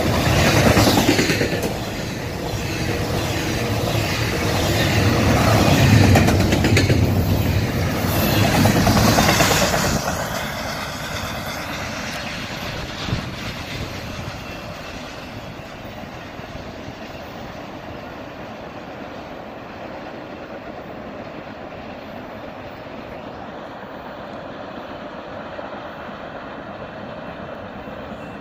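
Double-stack intermodal container cars rolling past on the rails, the wheels clattering with a loud rumble. About ten seconds in the sound drops off to a quieter, steady rumble as the end of the train moves away.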